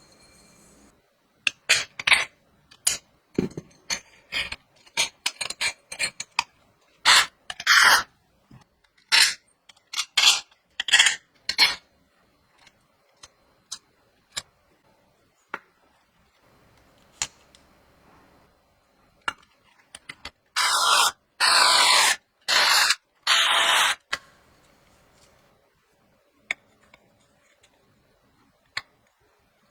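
Hand assembly of machine parts: a run of sharp clicks, taps and clinks as small parts are handled and fitted, then sparser clicks. Near the end come three loud scraping stretches of about a second each.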